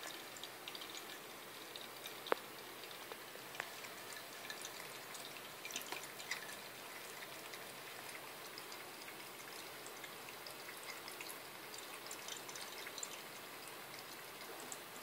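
Bathroom faucet running a thin, faint trickle of water into the sink, with small irregular splashes and ticks as a cat laps at the stream with its tongue. A single sharp click about two seconds in.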